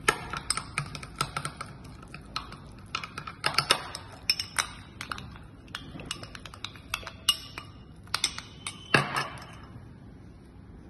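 Metal spoon stirring a thick hung-curd marinade in a glass bowl: quick, irregular clicks and clinks of metal against glass with soft scraping. The clinking thins out about nine seconds in.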